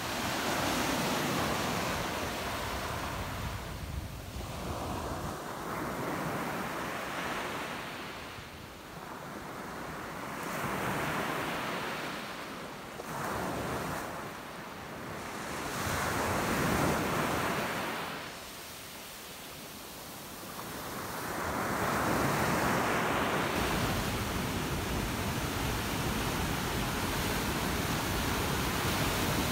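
Sea waves breaking and washing up a sandy beach, each surge swelling and fading every few seconds. About three-quarters through, it becomes a steady, unbroken rush of rough surf breaking over rocks.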